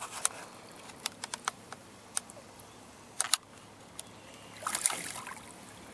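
Small splashes and drips of water at the side of a canoe as a smallmouth bass is released by hand: scattered sharp clicks, with a short louder splash near the end.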